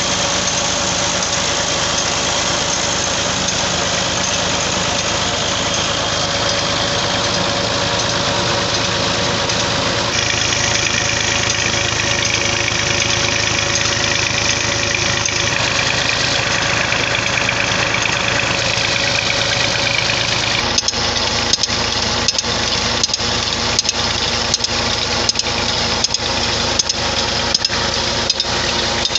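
Massey Ferguson MF 240's three-cylinder diesel engine running steadily, driving a tubewell pump by belt from its pulley. From about two-thirds of the way through, sharp clicks repeat about every 0.7 seconds over the engine.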